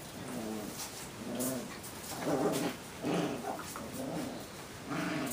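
Puppies making a string of short growls and whines as they wrestle, about six calls in quick succession.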